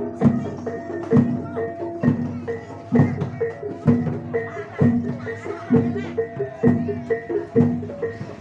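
Javanese gamelan music of the kind that accompanies barongan, with a steady beat. A low stroke falls a little under once a second beneath quicker pitched metallic notes.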